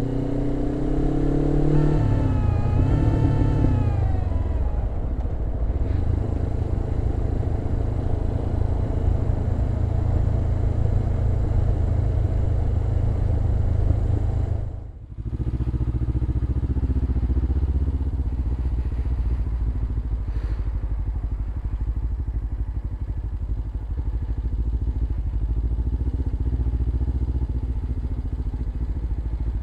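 Suzuki GS500E parallel-twin engine with a Leo Vince exhaust under way: the revs rise at first, drop at a gear change about two seconds in, then settle into steady running. The sound briefly dips about halfway through.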